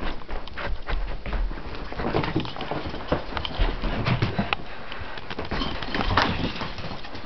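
A poodle's paws scampering and a person's running footsteps through a house: a busy, irregular patter of steps and thumps.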